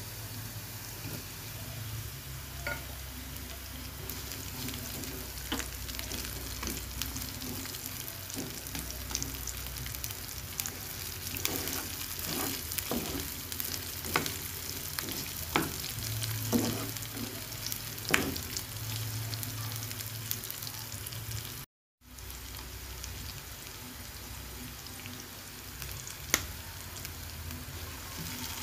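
Oil sizzling in a frying pan as ingredients are sautéed, with a spatula knocking and scraping against the pan now and then. The sound breaks off for an instant about three-quarters of the way in.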